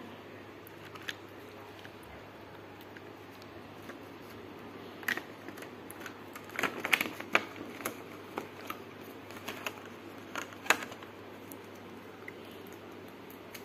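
Stiff plastic blister packaging crackling and snapping as a toy watch is pried out of it by hand: a run of sharp clicks and crinkles from about five seconds in, densest a little later, with one last sharp snap about eleven seconds in.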